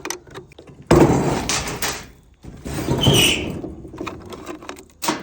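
Old wooden window being stripped by hand: two long rough scraping, ripping stretches, the second with a brief high squeak, among small clicks, and a sharp knock near the end.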